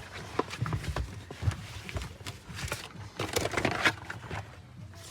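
Irregular knocks, taps and rustling of things being handled and set down.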